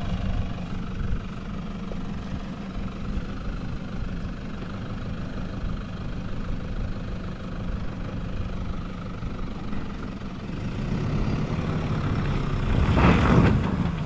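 Toyota Hilux engine working as the 4WD crawls up a steep, rocky off-road climb, a steady low engine note that builds near the end into a loud surge as the revs rise and the front wheel scrabbles in the loose dirt for traction.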